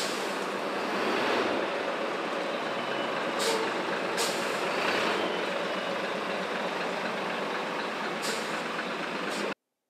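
Large diesel coach bus pulling away, its engine running steadily, with about four short air hisses from its brakes. The sound cuts off suddenly near the end.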